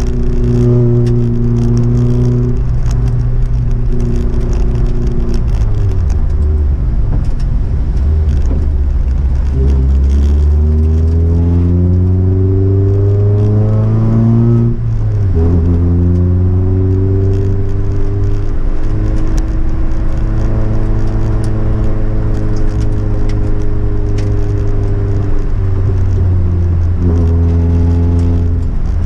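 Rally car engine heard from inside the stripped cabin, driven at a touring pace. The engine note climbs steadily under acceleration, drops sharply at an upshift about halfway through, then holds and slowly sags as the car cruises, with another shift near the end. Scattered light ticks and rattles sit over the engine.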